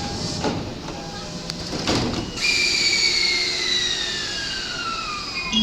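An E235-series electric train pulling away. A couple of knocks come early, then from a little over two seconds in the traction motors give a clear whine that slides steadily down in pitch.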